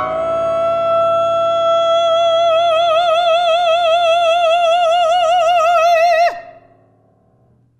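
Classical mezzo-soprano holding one long, loud high note, scooping up into it, with a vibrato that grows wider, over a held grand-piano chord. About six seconds in she cuts the note off with a quick downward slide, and the piano chord dies away.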